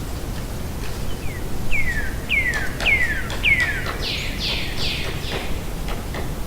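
A bird calling a series of about eight notes, roughly two a second. The first five each slide down in pitch and the last three are broader and harsher. Faint, scattered taps of a distant woodpecker pecking sound beneath the calls.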